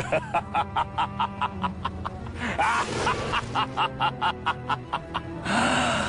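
Short meme music clip with a quick, steady beat of about four hits a second, ending in a louder, noisier burst.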